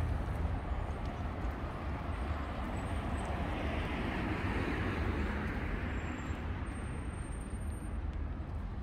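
City street traffic noise with a steady low rumble. A vehicle passes, swelling to its loudest about halfway through and then fading.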